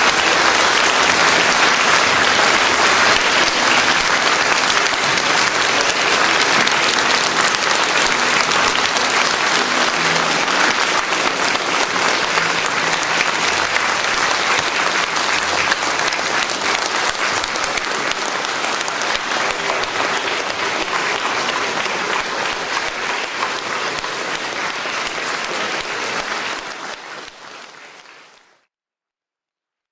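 Audience applause, a dense steady clapping that dies away about 27 seconds in, then silence.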